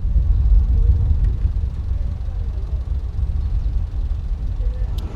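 A loud, steady low rumble of outdoor noise with faint, indistinct sounds above it, and a single sharp click near the end.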